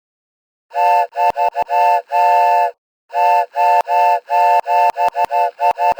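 A loud, steady chord of several tones, like a horn or whistle, sounded in a rhythm of short and long toots. It starts about a second in and pauses briefly near the middle. The gaps between toots are dead silent, with a click at some toot edges.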